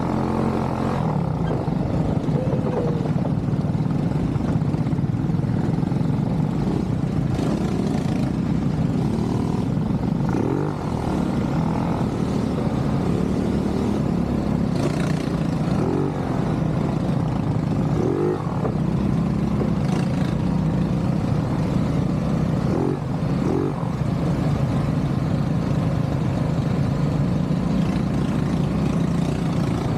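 ATV engine running steadily under way, with a few brief rises and falls in pitch from the throttle.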